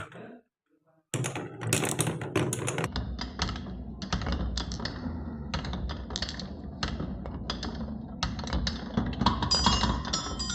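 Glass marbles rolling and clattering down a wooden marble run: a dense run of clicks over a steady low rolling rumble, starting about a second in. Near the end a few ringing tones join in.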